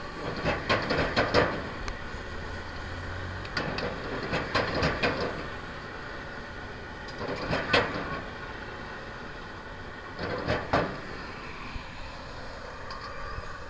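A metal ladle scraping and clanking against a steel wok while stir-frying, in four bursts about three seconds apart, over a steady background rush.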